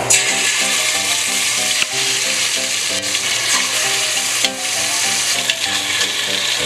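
Marinated chicken pieces sizzling steadily as they fry in hot oil in a deep metal pot, with soft piano music underneath.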